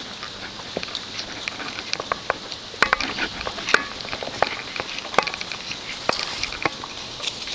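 A horse walking through dry scrub: hooves on the dirt trail, with twigs and brush crackling and scraping against horse and rider, and a few sharp snaps near the middle.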